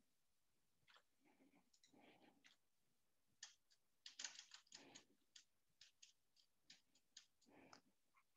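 Near silence broken by a quick series of faint computer clicks, several a second in the second half, as slides are paged through.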